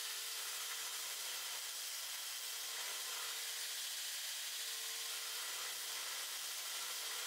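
Belt grinder running, a steady hiss with a faint hum, as the edge of a forged twist-damascus steel blade is ground against the belt to shape its profile.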